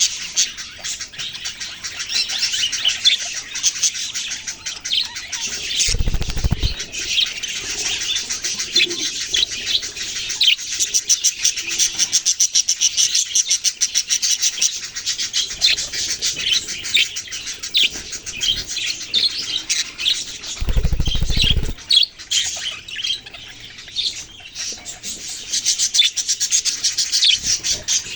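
A group of budgerigars chirping and chattering without a break, in many rapid high chirps. Two short low rumbling noises come about six seconds in and about twenty-one seconds in.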